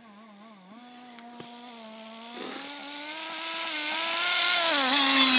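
Radio-controlled car's motor buzzing as the car drives over snow, growing steadily louder as it comes closer. Its pitch wavers at first, steps up about halfway through and drops near the end.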